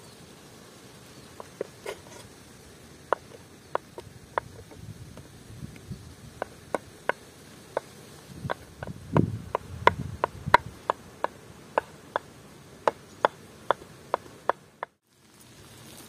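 A string of short, sharp clicks or taps, sparse at first and then coming about two to three a second in the second half, with a few low thuds around the middle; the sound cuts off abruptly shortly before the end.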